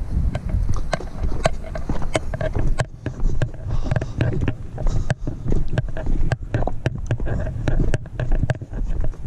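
Footsteps crunching and clacking over dry riverbed cobbles, irregular clicks about two a second, over a low rumble of wind and handling noise on the microphone.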